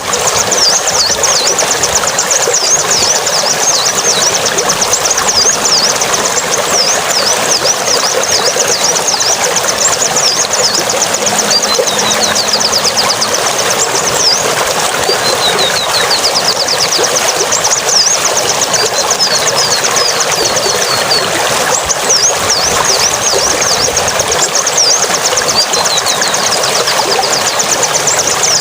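A small bird chirping in fast runs of high, quickly repeated notes that break off and resume, over a steady rushing noise like running water.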